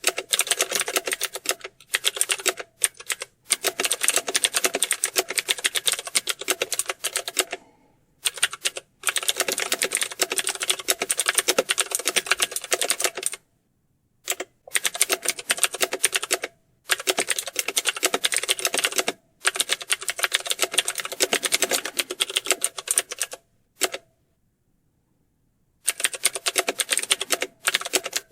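Rapid computer-keyboard typing: fast runs of keystroke clicks broken by short pauses, with two longer silent stops, one about halfway through and one near the end.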